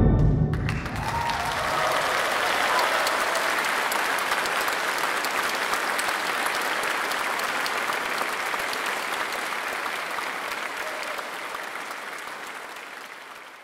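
Audience applauding, starting just as the orchestra's final chord breaks off, and fading out near the end.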